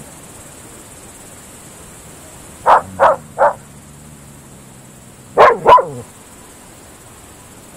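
Groenendael Belgian Shepherd dogs barking at night: three quick barks about three seconds in, then two louder barks a couple of seconds later, over a steady high hiss.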